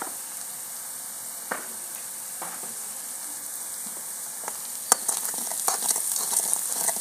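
Chopped onion, garlic and green chilli sizzling steadily in hot oil in an iron kadhai, with turmeric, red chilli and garam masala just added. Just before five seconds in, a steel ladle knocks sharply against the pan and then stirs, scraping and clinking against the metal.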